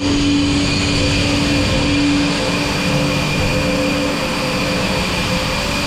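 Farm machinery running steadily: a constant mechanical hum and drone over a rumble, with no change in speed.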